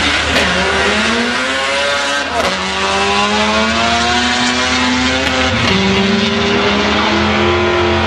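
Turbocharged Honda Civic EG hatchback drag car accelerating hard down the strip on a full pass. The engine pitch climbs and drops back at each upshift, three times.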